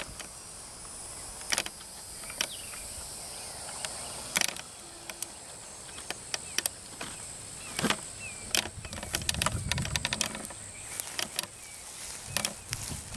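Insects trilling steadily at a high pitch, fading out after about ten seconds, with scattered sharp clicks and knocks.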